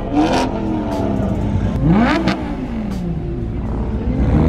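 Lamborghini Huracán's V10 engine being revved: the pitch climbs sharply about two seconds in and falls away again, with smaller revs dropping back near the start and the end.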